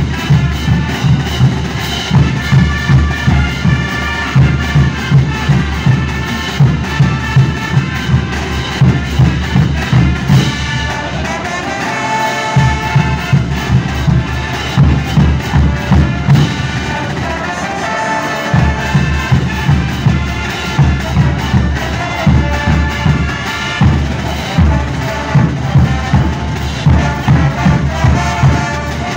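Marching brass band playing live: brass and sousaphones over steady bass drum beats. The drums drop out briefly twice, about twelve and eighteen seconds in, leaving the brass alone.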